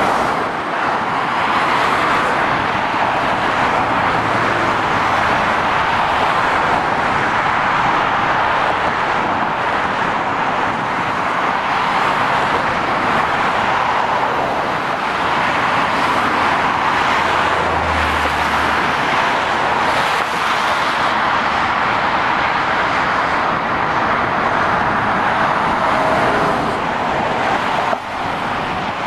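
Steady motorway traffic noise from lorries and cars driving past: a continuous rush of tyres on the road with engines mixed in, dipping briefly near the end.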